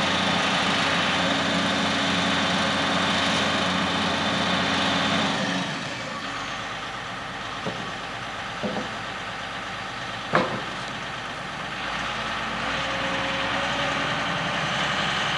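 Heavy diesel engine running steadily; about five seconds in it turns quieter and its note drops. After that come two light knocks and then a single sharp bang about ten seconds in.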